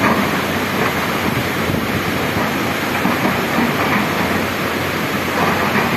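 Steady rush of a fast, muddy river mixed with the low running of crawler excavators working in the riverbed.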